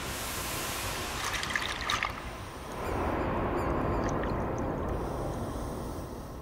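Scuba diver breathing through a regulator underwater. A crackling hiss comes first, then from about three seconds in a longer, louder burble of exhaled bubbles that fades away.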